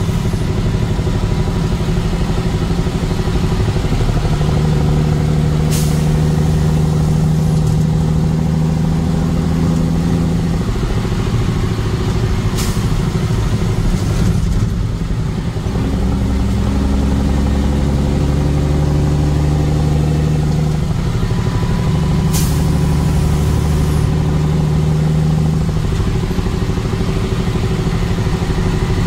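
Vehicle on the move: a steady engine and road drone whose pitch shifts now and then, with three or four sharp knocks along the way.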